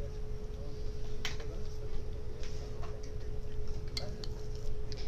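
A few light clicks and taps from hand-shaping zucchini vegetable patties over a glass mixing bowl and setting them on a plate, over a steady hum.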